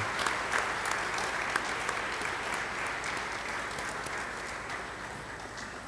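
Audience applauding, dense clapping that gradually dies away.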